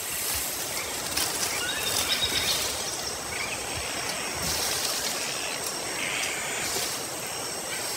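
Rainforest ambience: a steady high-pitched hiss and drone with scattered short bird calls.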